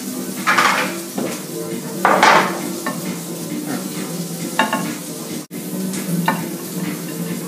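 Food sizzling in frying pans on a gas stove, a steady hiss over a low hum, with a couple of louder bursts about half a second and two seconds in. The sound drops out for an instant about five and a half seconds in.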